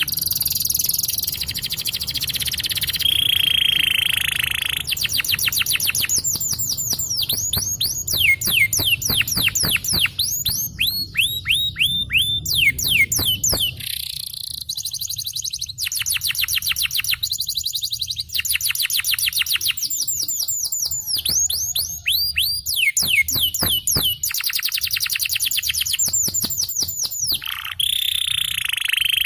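Domestic canary singing a long, continuous song of fast trills (rolls): runs of quick falling notes repeated many times a second, switching to a new phrase every few seconds. A low steady hum sits underneath.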